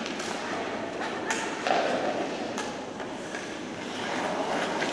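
Ice hockey skates scraping across the ice, with a few sharp clacks of sticks and puck, the two clearest about a second and a half apart.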